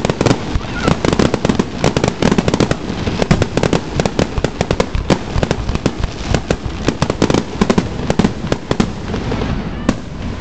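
Aerial fireworks finale barrage: a loud, rapid string of bursts and reports, several a second, overlapping one another. The bursts thin out in the last second or so.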